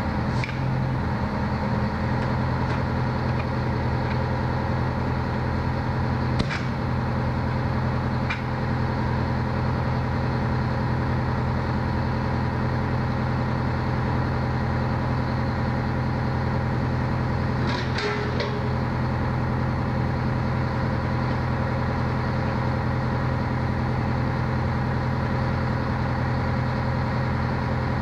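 Fire engine idling steadily with a low, even hum. Four sharp knocks come through it, at the start, around six and eight seconds, and once more near the middle, as the hose coupling is worked at the hydrant.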